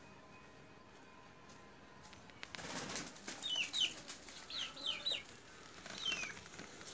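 A young chicken peeping: a string of short, high, falling peeps starting about halfway through, over some faint rustling.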